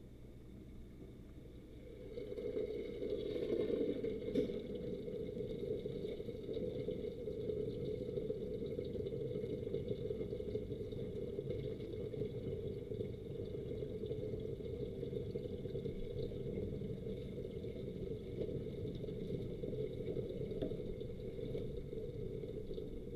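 Water running steadily from a tap into a sink, starting about two seconds in, with a single light knock a couple of seconds later.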